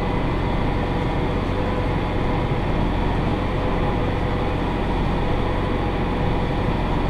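Massey Ferguson 5610 tractor's four-cylinder diesel running steadily under load while it pulls a John Deere 468 round baler through the hay.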